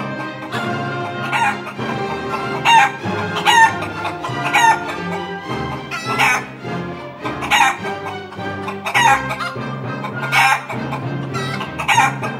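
Hens squawking and clucking in short loud calls, about one a second, over music with sustained tones.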